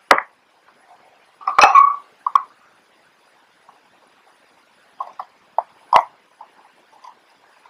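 Scattered clicks and knocks of hands handling a partly dismantled 35mm film camera and its small parts: a sharp click at the start, the loudest knocks about one and a half to two seconds in, and a run of lighter clicks about five to six seconds in.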